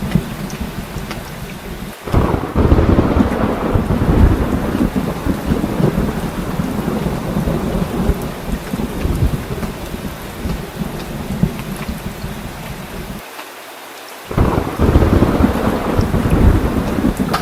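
Heavy rain falling steadily, with thunder rolling in twice: a long low rumble that starts suddenly about two seconds in, and a second one that breaks in sharply near the end after a brief lull.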